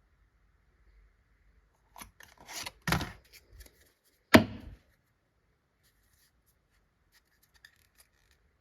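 Pokémon card packaging being handled and opened: a stretch of rustling and rubbing about two seconds in, then one sharp, loud sound a little past four seconds, followed by a few faint clicks near the end.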